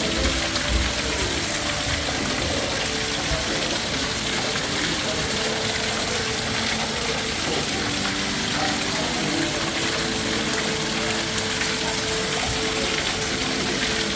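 Waterfall: water pouring steadily in an even, unbroken rush.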